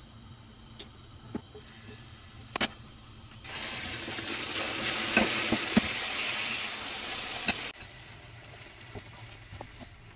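Marinated chicken wings sizzling as they brown in a hot non-stick frying pan, with sharp clicks of tongs against the pan. The sizzle comes in about a third of the way through and cuts off suddenly about four seconds later, leaving only faint clicks.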